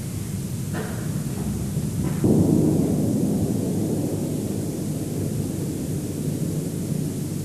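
Steady low rumble with hiss, growing louder about two seconds in and then easing slightly.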